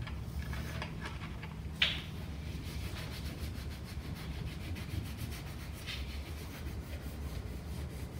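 Colored pencil rubbed quickly back and forth over paper laid on leaves, a steady scratchy scraping of repeated strokes, making a leaf rubbing. A single sharp tap about two seconds in.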